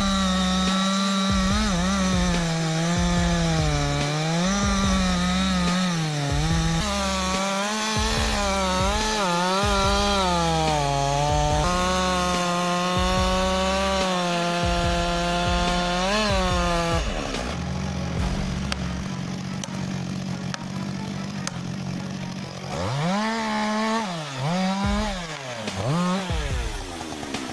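Two-stroke chainsaw cutting wood, its engine pitch dipping and recovering repeatedly as the chain bogs under load. About two-thirds of the way through the sound becomes steadier, and near the end the revs swoop down and back up a few times.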